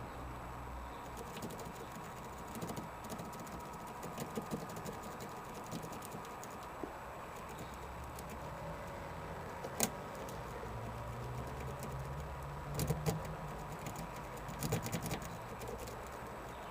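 Lock pick and tension tool working in a 2000 Renault Scenic's door lock: scattered small metallic clicks and rattles, one sharp click about ten seconds in and clusters of clicks near the end, over a steady low hum.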